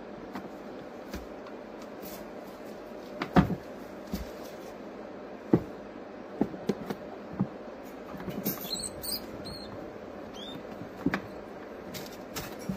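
Scattered sharp knocks and bumps on a plastic tub, the loudest about three seconds in, over a steady low hum. A few brief high squeaks come in a quick cluster just past the middle.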